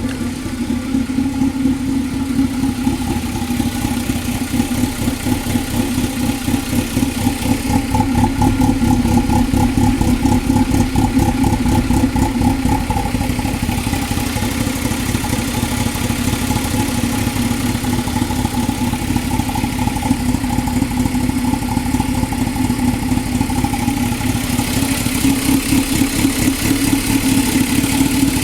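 2000 Toyota MR2 Spyder's 1.8-litre four-cylinder engine at a rough idle, with a fast, uneven pulsing beat. It gets a little louder about a third of the way in and again near the end.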